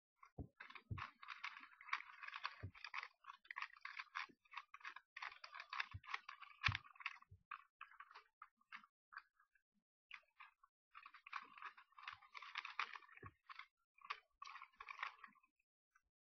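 Plastic Rubik's Cube being turned by hand: dense runs of quick clicks and rattles as the layers twist, thinning to a few scattered clicks for a few seconds in the middle before picking up again.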